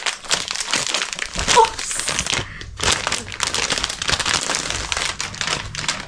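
Clear plastic packaging crinkling and rustling as it is handled and a folded saree is pulled out of its plastic bag, with a short pause about halfway through.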